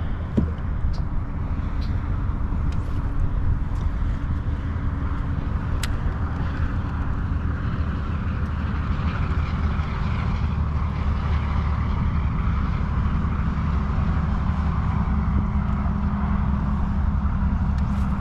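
Boat motor running steadily at speed, with a rush of water and wind under it.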